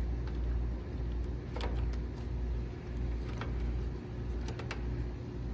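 Steady low rumble with a faint constant hum, broken by a few light clicks and taps from handling parts while the capacitor is being wired in and fitted.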